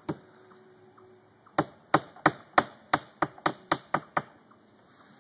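Hammer tapping: one strike just after the start, then a quick run of about ten strikes, some three or four a second.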